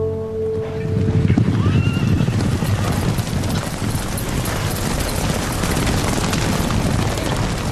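Hoofbeats of a group of horses galloping hard, a dense, continuous pounding, with one horse whinnying about two seconds in.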